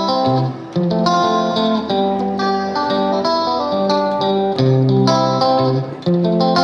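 Background music: a plucked guitar melody of clear, held notes with a steady pulse.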